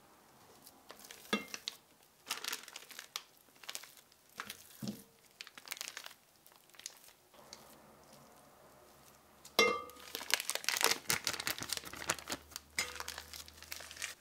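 Plastic piping bag crinkling and rustling as thick pastry dough is scooped into it, with a spatula scraping and knocking against a glass mixing bowl. A sharp, ringing knock comes about ten seconds in and is the loudest sound.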